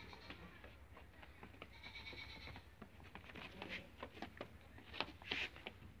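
Barbari goats bleating briefly, at the start and again about two seconds in. Through the second half come a run of sharp clicks and knocks, the loudest about five seconds in.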